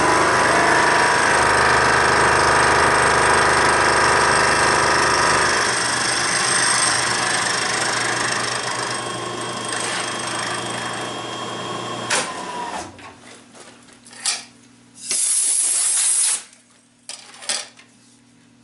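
Vertical milling machine cutting a metal part, the spindle and cutter running loud and steady; the cut gets lighter about five seconds in and the spindle winds down around twelve seconds in. A few clicks and knocks follow, and a hiss lasting over a second near the end.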